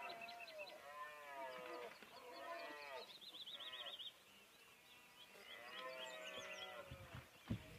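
Red deer stag roaring in the rut: a series of drawn-out bellows, each rising and falling in pitch, with a pause in the middle and the last bellow about six seconds in. A bird trills briefly about three seconds in, and a single dull thump comes near the end.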